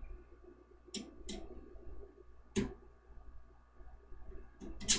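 Four short, sharp clicks and taps of a small screwdriver and screws being worked out of a mini-tower PC case, the loudest near the end.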